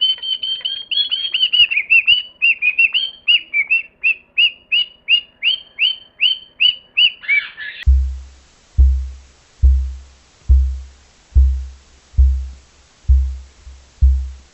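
A bird chirping rapidly, a string of short falling chirps about three a second for roughly eight seconds. It then cuts to a different sound: deep thumps about once a second over a faint hiss.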